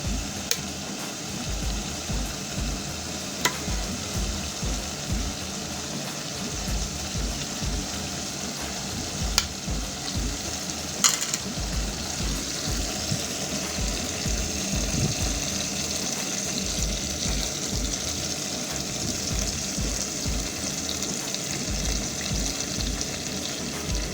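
Curry paste of tomatoes and spices sizzling in a pan while it is stirred. There are irregular soft thuds and a few sharp clicks of the spoon against the pan.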